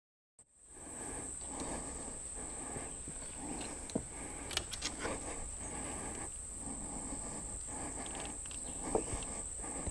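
Outdoor ambience with a steady high-pitched insect drone, under lower, irregular animal-like rumbling and a few sharp clicks; it starts suddenly out of silence just under half a second in.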